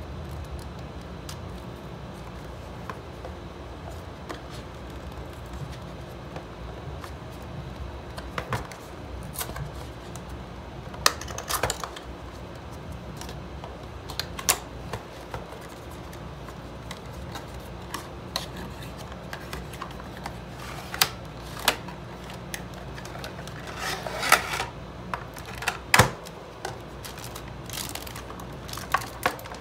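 Unboxing handling of a USB charging hub's cardboard box, paper insert and plastic tray with wrapped cable: scattered clicks, rustles and crinkles, more frequent in the second half, over a steady low hum.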